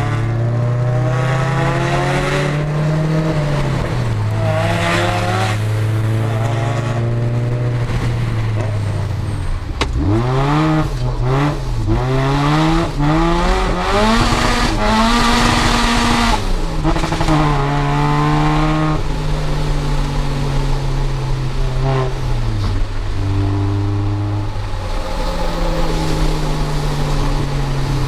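Supercharged Mazda MX-5's 1.8-litre BP-ZE four-cylinder with a Rotrex C30-94 supercharger, through a decat sport exhaust, running at steady revs, then revved hard in quick rising and falling sweeps through the middle with tyres squealing as the car skids, before settling back to steady revs.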